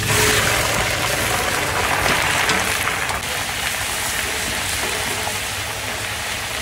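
Loud sizzling as a big heap of diced raw meat is dumped into hot oil and garlic in a large steel wok, the hiss strongest for the first three seconds or so and then slowly easing off. A steady low hum runs underneath.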